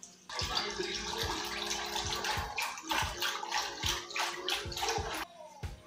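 Wooden hand churner twirled between the palms in a steel pot of buttermilk: the liquid sloshes and swishes in quick strokes, about three a second, stopping shortly before the end.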